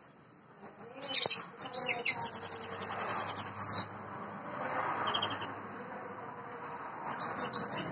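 European greenfinch in breeding condition singing: bright, rapid high trills and chirps, the first phrase ending in a sliding note. A second burst of trilling starts near the end.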